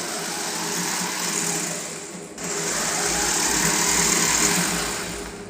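Small electric motors of a Wi-Fi-controlled model boat whirring as they are driven through its motor driver. The whirr dips briefly about two seconds in, runs again, and tails off near the end.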